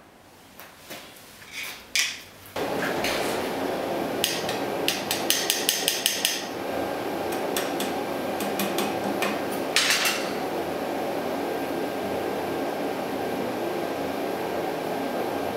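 A small hammer tapping on a stainless steel bicycle rack stay fitted into a stem clamp: a few light knocks, then a quick run of about eight sharp metallic taps, more scattered taps and a short scrape. A steady background noise starts suddenly about two and a half seconds in and runs underneath.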